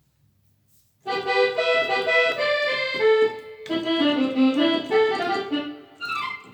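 Korg Triton keyboard playing a quick melody over chords and bass notes, starting about a second in, with a short break partway through and a quick rising run near the end.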